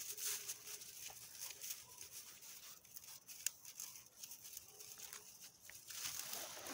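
Faint rustling and light snapping of dry twigs and grass as two Central Asian Shepherd puppies scramble and root about in a brush pile on snow, with scattered small clicks. The rustling grows louder near the end.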